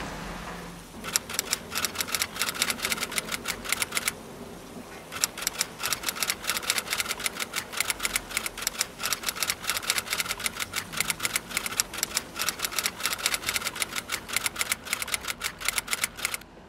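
Rapid, irregular keystroke clicks of typing, in two runs with a pause of about a second a little after four seconds in.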